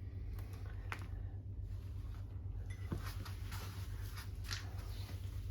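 Scattered faint clicks and light taps over a steady low hum, with more of the clicks in the second half.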